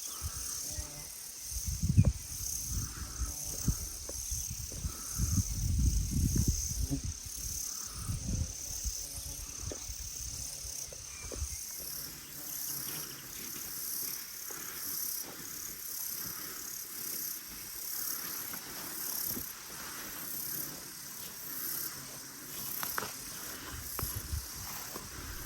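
Insects chirping in a steady high-pitched drone that swells and fades about once a second. Low thuds and rustles come through in the first several seconds.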